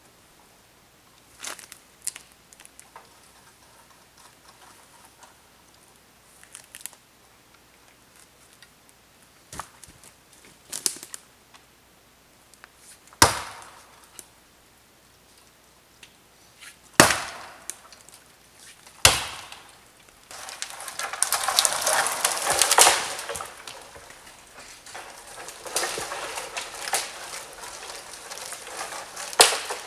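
Light crackles of footsteps in dry forest litter, then three sharp chopping blows into wood a few seconds apart. Right after comes a few seconds of loud crackling and snapping of dry branches as a dead pole comes down through the brush, easing to rustling near the end.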